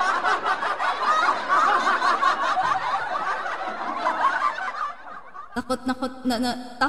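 Laughter for about the first five seconds, dense and continuous, then a short quieter gap and a voice near the end.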